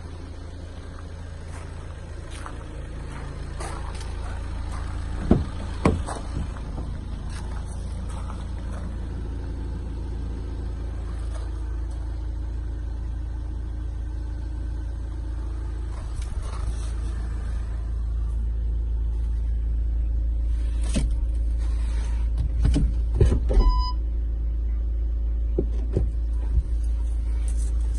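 Volkswagen Caddy 2.0 TDI diesel engine idling with a steady low rumble, with a few clicks and knocks and a short electronic beep about three-quarters of the way through.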